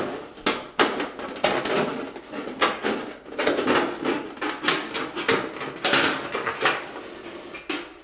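Straight-cut tin snips cutting along 6-inch round sheet-metal ductwork: a crisp metallic crunch with each bite of the blades, roughly two snips a second at an uneven pace. The thin duct rattles and rings briefly after each cut.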